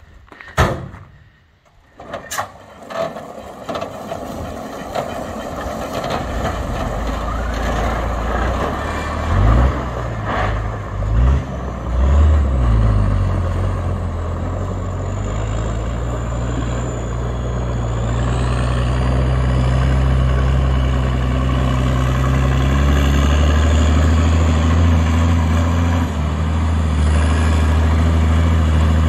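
A couple of knocks, then a military 6x6 dump truck's diesel engine pulling away, its revs rising and falling about ten seconds in, and settling into a steady heavy diesel engine sound that grows louder.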